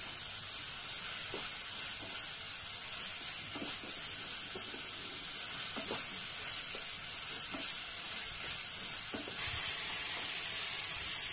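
Onion, ginger-garlic and green-chilli masala paste sizzling in oil in a non-stick kadai while a wooden spatula stirs and scrapes it around the pan, frying the paste down (kosha). The sizzle gets louder about nine seconds in.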